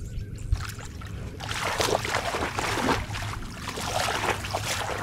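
Shallow muddy water splashing and sloshing as someone wades through it, starting about a second and a half in and going on in irregular splashes.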